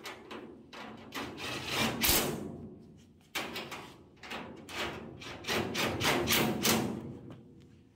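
Cordless impact driver with a socket extension running bolts down tight in a series of short trigger bursts, several in quick succession near the middle and again toward the end, fastening a bolted-in steel front inner wheel tub.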